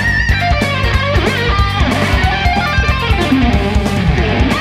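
Distorted electric-guitar lead from a Fender Stratocaster through a Mooer Micro Preamp 015 Brown Sound on its high-gain channel-2 drive, using the pedal's cabinet emulation. The line is full of bent notes and vibrato, over drums and bass guitar.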